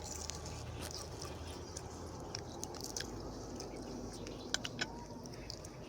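A person eating close to the microphone: chewing and biting with scattered short crunches and clicks, two sharper ones near the end.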